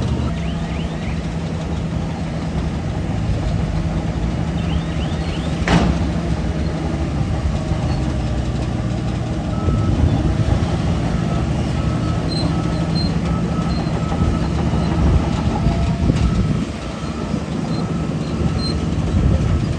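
Bulldozer's diesel engine running steadily under load, with a backup alarm beeping in short repeated pulses at times and a sharp metallic clank about six seconds in.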